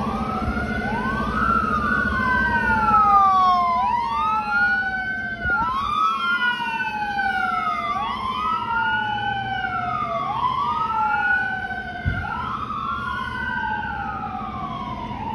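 Fire department battalion chief's pickup siren sounding a wail: the pitch rises quickly, then slides slowly back down, repeating about every two seconds, with overlapping copies of the sweep.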